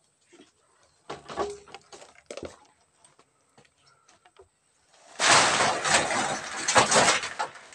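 Wet concrete mix poured from a bucket onto steel reinforcing mesh in a slab form: a loud rushing, gritty slide of about two and a half seconds, beginning about five seconds in. Before it come a few quiet knocks and scrapes.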